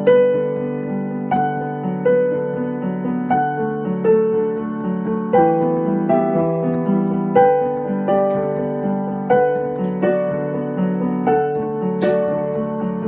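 Piano music: slow chords struck about once a second, each left to ring and fade before the next.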